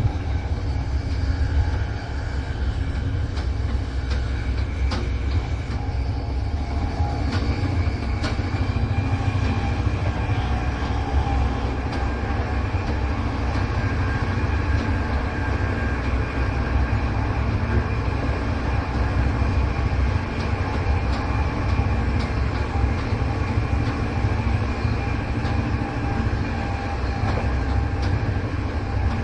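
Inside a passenger train cruising at steady speed: a constant heavy low rumble of the running gear on the track, with a few faint steady tones above it and occasional light clicks.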